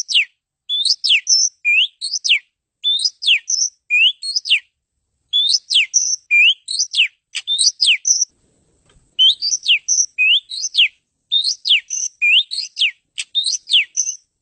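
Oriental magpie-robin (kacer) singing: quick phrases of clear, sharply rising and falling whistled notes, repeated again and again with short gaps and one pause of about a second partway through.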